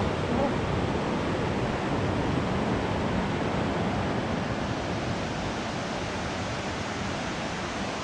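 Steady, even rushing of a waterfall heard across the lake, with no breaks or changes.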